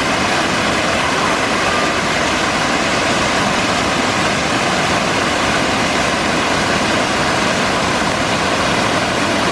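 Waterfall pouring: a loud, steady, unbroken rush of falling water.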